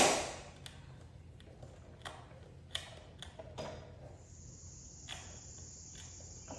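A sharp knock, then scattered light clicks and taps of hand work on parts, then a steady high hiss lasting about three seconds near the end.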